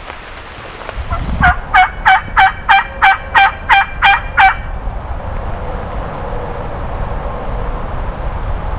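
A series of about eleven loud turkey yelps, evenly spaced at roughly three a second, lasting about three seconds. After them come steady rain hiss and a low rumble.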